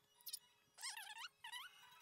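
Quiet instrumental background music: held tones underneath, with a short wavering melody phrase played twice about a second in.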